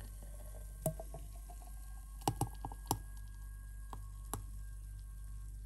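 Thick blended strawberry lassi poured from a blender jug into a tall glass: a soft pour with scattered light clicks and taps, several close together about two to three seconds in, over a faint steady hum.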